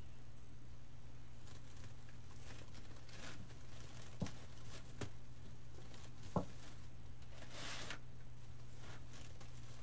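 Soft rustling and crinkling of wired ribbon and deco mesh as hands pull and fluff the loops of a wreath, with a few light clicks, over a steady low hum.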